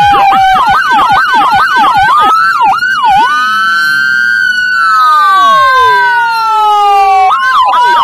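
Whelen 295SDA1 dual-tone electronic siren through SA314 and LoPro speakers, two siren tones sounding together: a fast yelp of about four sweeps a second slows about three seconds in into a long slow wail in which the two tones cross in pitch, then switches back to a fast yelp near the end.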